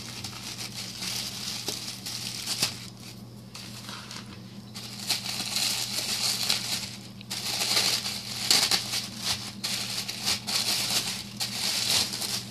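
Tissue paper crinkling and rustling as a wrapped package is handled and opened by hand. It lulls briefly a few seconds in, then grows busier.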